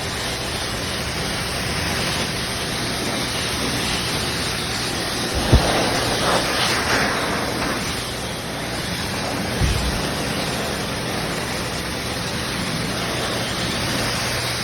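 High-velocity pet dryer blowing, a steady rush of air, with two brief low thumps around the middle.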